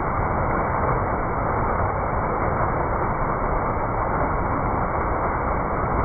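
Ornamental fountain's cluster of foaming water jets splashing steadily into the basin, a constant rushing of falling water.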